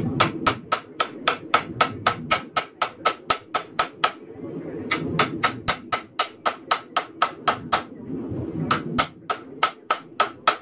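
Hand hammer striking a red-hot steel knife blade on an anvil, each blow a sharp metallic ring, about four blows a second. The blows come in three runs with two short pauses.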